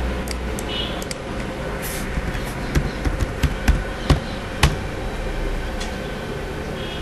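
Computer keyboard keys tapped in a quick run of about eight keystrokes, typing a short command, a little under three seconds in. Under it is a steady background hum.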